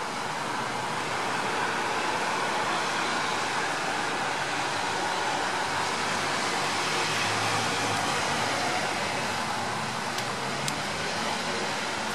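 Steady outdoor traffic noise, an even hiss that swells a little midway, with two faint clicks near the end.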